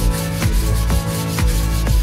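Sandpaper block rubbed back and forth by hand over a white-painted skirting board, a dry rasping scrape, heard over electronic background music with a steady beat.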